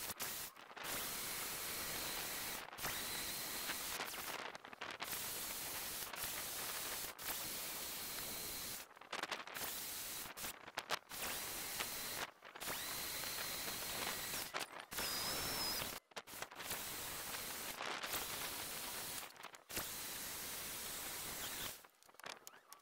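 Corded electric drill running a long bit deep into a block of laminated pallet wood, a steady motor whine over the hiss of the bit cutting. It comes in runs of a second or three, broken by abrupt gaps.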